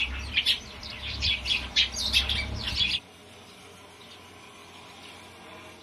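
Sparrow chirping close up inside a nest box: a quick run of sharp, repeated chirps over a low rumble, stopping abruptly about three seconds in and leaving only a faint background.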